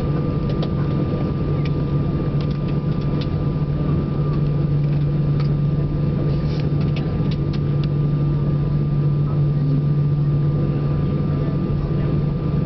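Steady cabin drone of an Airbus A320-family airliner taxiing after landing, a low hum with a thin steady whine from the idling engines. A few faint clicks and rattles sound through it.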